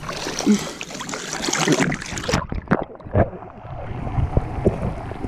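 Water sloshing and splashing as someone wades through shallow water, mixed with noise that runs high up the range. About two seconds in the sound changes abruptly and turns quieter, with a few sharp knocks after it.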